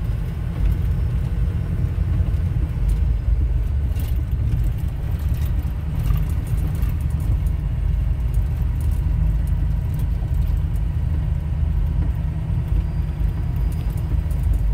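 Steady low rumble of a vehicle rolling along a gravel road, heard from inside the cab: engine and tyre noise, with a few faint ticks about four and six seconds in.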